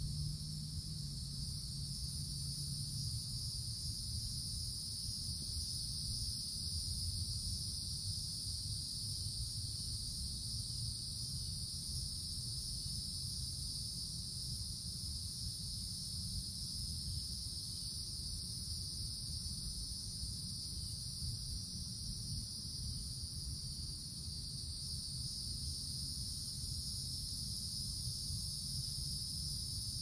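Cicadas droning in a steady, unbroken high buzz, over a low background rumble.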